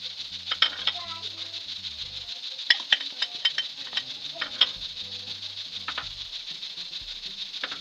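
Chicken masala sizzling steadily in hot oil in a metal karahi, with sharp clicks of a metal spoon against the pan as the spices go in.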